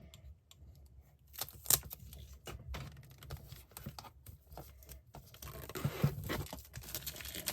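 Packaging of a wall calendar being torn open by hand, with rustling and a few sharp snaps, busier near the end.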